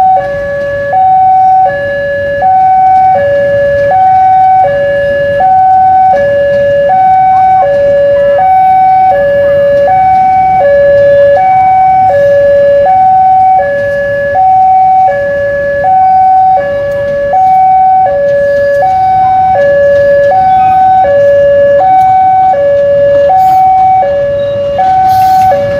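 Railway level-crossing alarm sounding its warning while the barriers are down, an electronic two-tone signal switching steadily between a higher and a lower pitch about once a second. Under it, the low rumble of a passing train.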